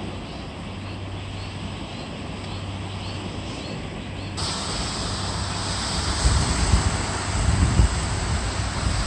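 Steady rush of water pouring down a concrete dam spillway, suddenly louder and brighter about four seconds in, with a low steady hum under it before that. In the second half, low rumbling gusts of wind hit the microphone.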